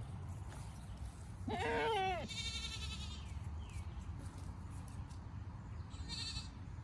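A goat bleats once, a wavering call under a second long, about a second and a half in. Birds sing briefly just after it and again near the end.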